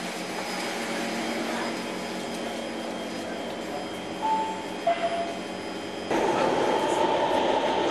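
Singapore MRT subway carriage noise with the train standing at the platform, a short descending two-note chime about four seconds in, then about six seconds in the running noise steps up suddenly and stays loud as the train sets off.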